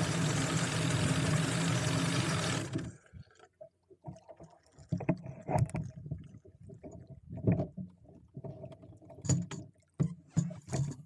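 1996 Force 120 inline four-cylinder two-stroke outboard idling with its cowling off, cutting out suddenly about three seconds in. After it stops, water laps and sloshes against the hull with a few light knocks.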